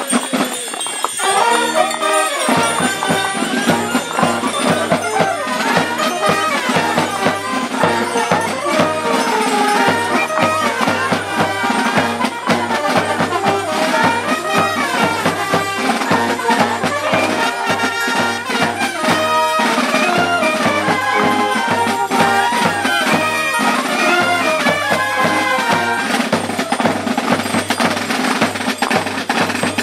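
Street marching band of brass, fifes and drums playing a march, with a sousaphone bass line and steady drum strokes under the melody. The bass comes in about two seconds in.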